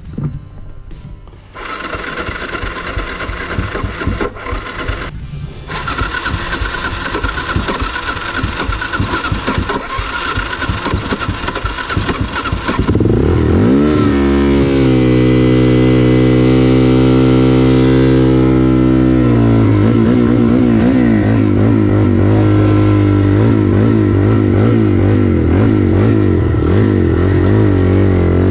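A trail bike being cranked over on its starter again and again without the engine catching: the bike won't start. About 13 seconds in, a much louder, deep, steady musical drone takes over, wavering in pitch in its later part.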